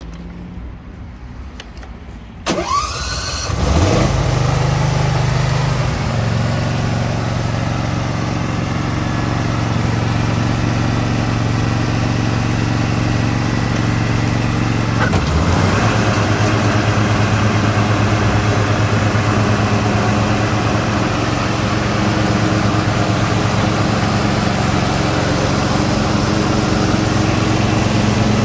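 Husqvarna R 214TC ride-on mower's air-cooled Briggs & Stratton Intek V-twin engine being started: a short rising whine of the starter and the engine catches a few seconds in, then runs steadily. About halfway through its sound dips briefly and it runs on slightly louder.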